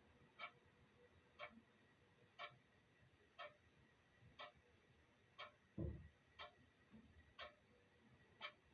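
Clock ticking faintly and evenly, about one tick a second. About six seconds in there is a single low thump.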